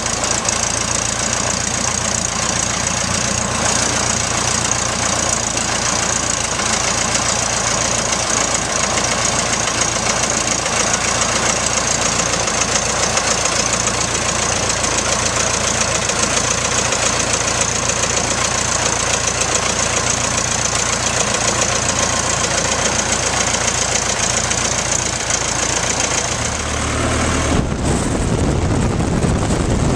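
Piper Cub's small piston aircraft engine running steadily at idle with the propeller turning, on its first run after renovation. Near the end the sound changes to a deeper rumble, heard from inside the cabin.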